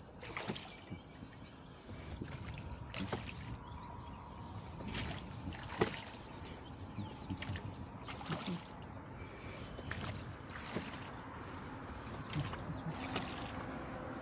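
Oars of a flat-bottomed rowboat being pulled: a sharp knock from the oars in their oarlocks every second or two, with the blades splashing and the water gurgling along the hull.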